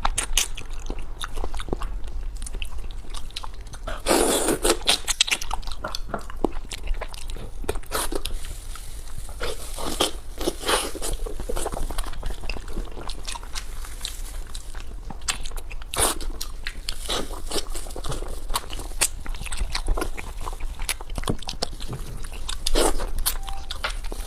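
Close-miked eating: a person chewing and biting food, with many irregular crunches and clicks, and louder bites about four seconds in and near the end.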